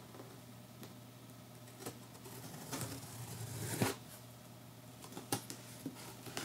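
Knife slitting the packing tape on a cardboard box: a scratchy rasp lasting about a second and a half, ending in a sharp click, then a few light clicks of handling the box near the end.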